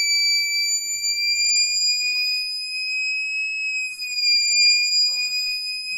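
Small piezo buzzer sounding a continuous high-pitched alarm tone that wavers slightly in pitch. It is set off by a match flame held to the diode heat sensor of a simple transistor fire-alarm circuit.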